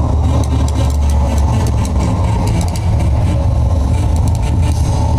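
Loud, steady low rumble like a running engine, played over the performance loudspeakers.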